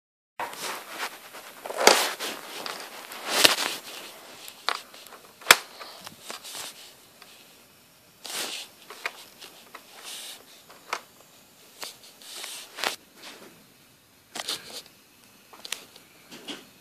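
Irregular rustling and clicking handling noises, with three sharp, loud clicks in the first six seconds and softer scattered rustles after.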